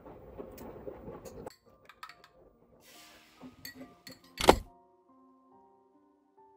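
Oil sizzling and crackling in a hot frying pan, cut off about a second and a half in. Soft background music of short held notes follows, with a single loud thunk about four and a half seconds in.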